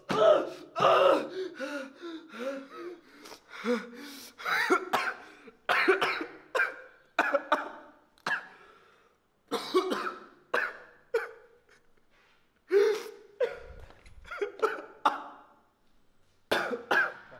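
A young man sobbing hard: uneven bursts of choked, gasping cries, broken by short pauses.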